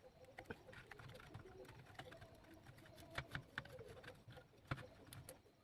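Faint, irregular small clicks and ticks of a screwdriver working the screws that hold the heat sink on an amplifier board.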